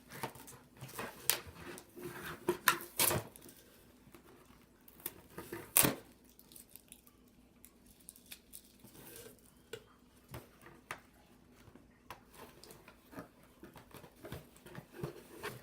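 Toy packaging being handled and worked open: scattered clicks, taps and rustles, busiest in the first few seconds, with one loud sharp click about six seconds in.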